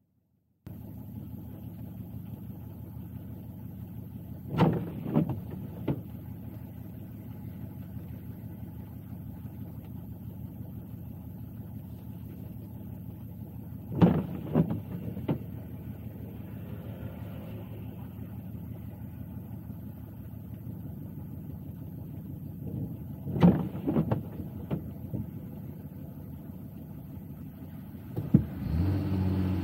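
Steady engine and road hum inside a car cabin. Three times, about every nine or ten seconds, there is a short cluster of clicks and knocks, typical of windshield wipers on an intermittent setting in the rain. The hum gets louder near the end.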